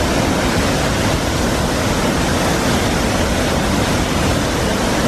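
Triberg Falls, a cascading waterfall, rushing in a loud, steady roar of falling water.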